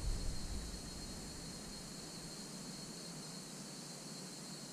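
Steady high-pitched insect drone, a continuous buzz with a thin steady tone in it, with a low rumble fading out in the first second.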